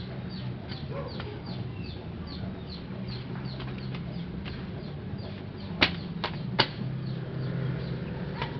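Small birds chirping: quick high chirps that slide downward, repeated a few times a second, over a low steady hum. Two sharp clicks about six seconds in.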